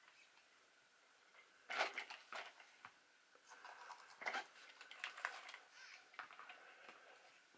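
Light clicks and knocks of a 1/10-scale RC truggy's plastic chassis being handled and moved over a wooden floor, the sharpest about two seconds in and again about four seconds in.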